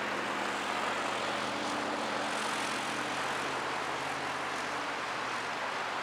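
Diesel freight locomotives running, a steady low engine drone over a wide rumble; the engine hum fades about five seconds in, leaving the rumble.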